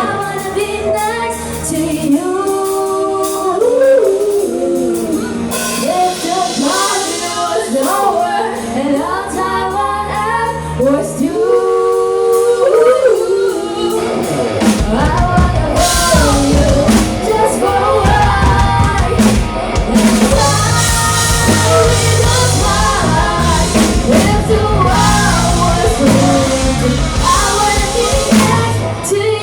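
Live rock band playing with a singer. The first half is voice over sparse bass notes, and the full drum kit and band come in about halfway through.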